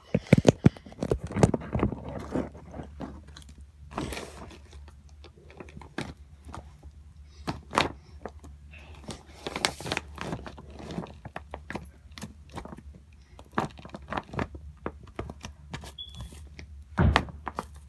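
Irregular clicks, knocks and scraping from objects being handled close to the microphone, over a faint steady low hum.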